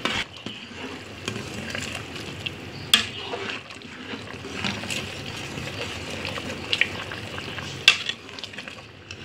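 Black chickpeas in onion-tomato masala bubbling in an open pressure cooker while a metal spoon stirs them. Sharp clinks of the spoon against the pot come about 3 and 8 seconds in. The chickpeas are being fried down (bhuna) to cook off the remaining water.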